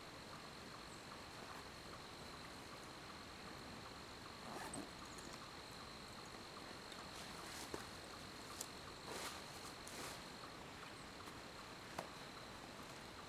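Faint steady high-pitched insect trill in woodland, with a few soft clicks and rustles scattered through it.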